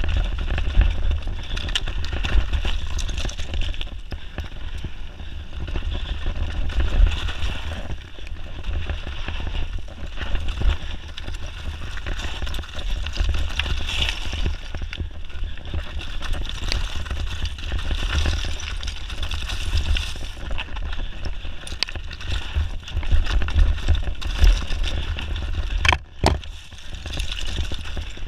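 Mountain bike descending a dry trail of loose stones and debris, heard from a camera on the bike: wind rumbling on the microphone, tyres rolling over gravel and the bike rattling with frequent knocks over rocks.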